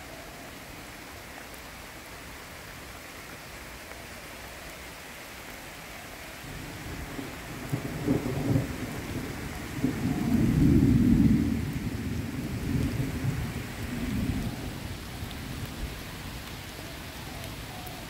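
Steady rain hiss, with a long, low rumble of thunder rolling in about six seconds in. The rumble is loudest a few seconds later and then fades away.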